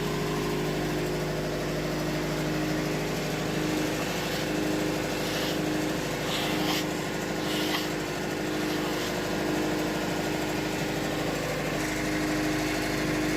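Wood-Mizer LT70 band sawmill running steadily, with a few brief hissing bursts about four to eight seconds in.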